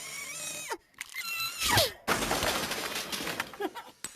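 A cat meowing in short calls, one drawn out and falling about a second in, followed by about two seconds of loud crackling noise.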